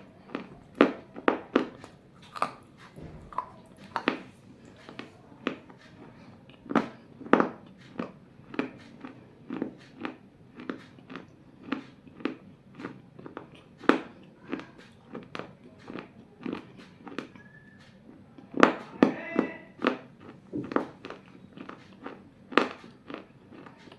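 Pieces of a baked clay bowl being bitten and crunched between the teeth: sharp, irregular crunches about one or two a second, with a louder flurry of crunches about three-quarters of the way through.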